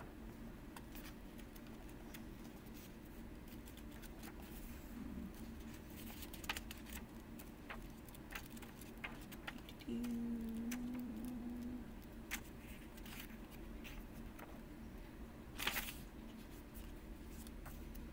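Pages of a paperback guidebook being leafed through and turned: soft paper rustles and small clicks, with one louder page swish near the end. A brief low hum sounds about halfway through.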